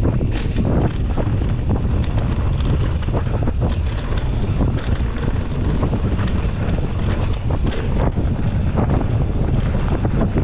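Wind buffeting the microphone of a rider-mounted camera during a downhill mountain-bike descent, with frequent short clicks and rattles from the bike running over rough trail.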